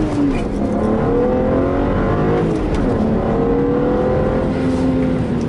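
BMW 335i's N54 twin-turbo inline-six heard from inside the cabin under hard acceleration. The engine pitch climbs, drops at upshifts about half a second in and again near three seconds in, then climbs again and levels off near the end.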